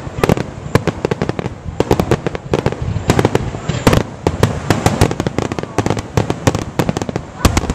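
A rapid volley of aerial firework shells bursting, with many sharp bangs and crackling reports a second over a low rumble.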